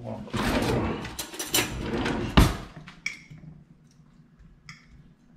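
Shrimp sizzling in a skillet for about two and a half seconds, with crackling and a sharp clack near the end. Then a few light metal clinks of a fork stirring in the pan.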